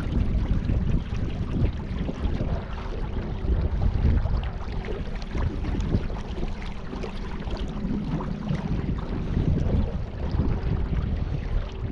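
Wind buffeting the microphone on the river, a loud, uneven low rumble, over a faint steady hum.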